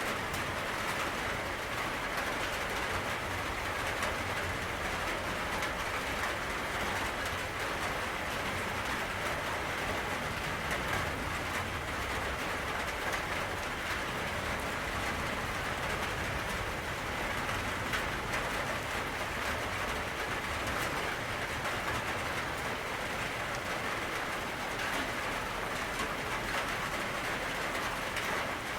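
Steady rainfall: an even hiss of rain with scattered drops ticking.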